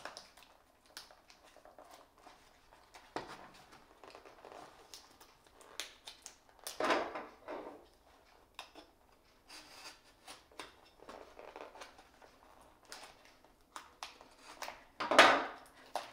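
A utility knife slitting along the tape and cardboard of a small retail box, with small scrapes and clicks of handling. Two louder tearing sounds come about seven seconds in and near the end, the second the loudest.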